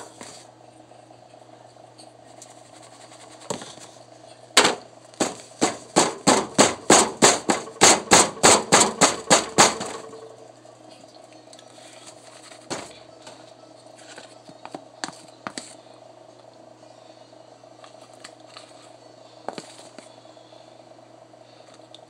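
Hands working cornstarch and its container, making a quick run of sharp clacks at about three a second for some five seconds. A few scattered light clicks follow.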